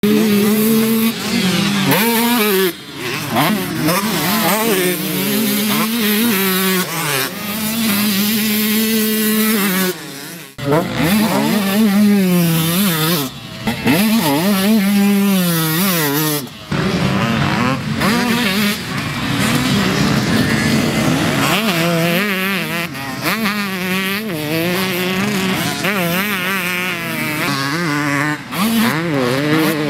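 KTM SX two-stroke motocross bike engine revving hard, its pitch climbing and falling repeatedly as the throttle opens and closes. The sound breaks off abruptly a few times and picks up again.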